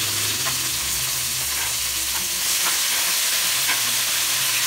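Raw pork pieces frying in hot oil with sautéed onions and garlic in a wok, sizzling steadily, with a few clicks and scrapes of the spatula against the pan as it is stirred.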